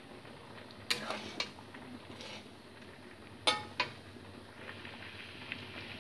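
A metal spatula stirring moong dal in a metal kadai, knocking against the pot a few times with a brief metallic ring, once about a second in and again about three and a half seconds in. From about four and a half seconds in, the dal bubbles as it simmers.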